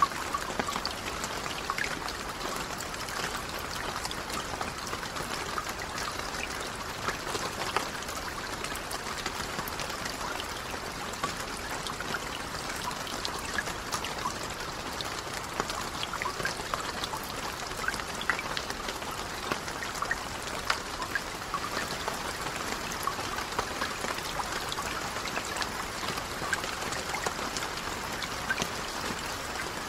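Steady rain falling on a lake: a dense patter of individual drops over an even hiss.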